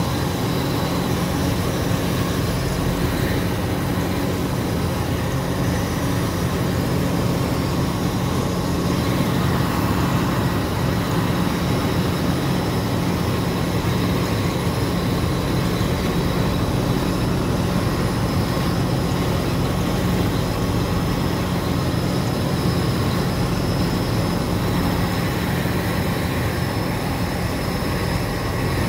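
Tractor diesel engine and sugar beet harvester running steadily at close range, a constant engine drone with the harvester's machinery noise over it while it digs beets.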